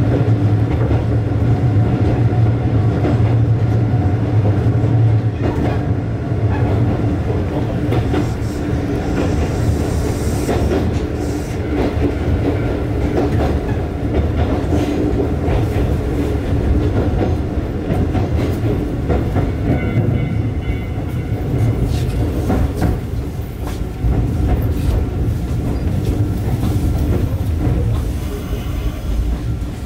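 Mizuma Railway 1000 series electric train running on the line: a steady rumble of wheels on track with repeated rail-joint clicks. A low hum at the start drops away after about five seconds, and the train is slowing as it nears a station stop.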